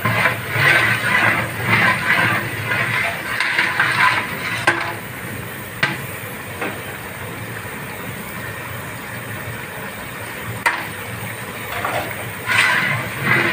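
Long metal ladle stirring dal in a large aluminium cooking pot: bursts of sloshing and scraping for the first few seconds and again near the end, with a few sharp knocks in between, over a steady low rumble.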